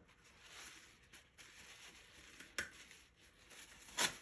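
Paintbrush working on watercolour paper, a faint scratchy brushing, with a sharp tap about two and a half seconds in and a louder one near the end.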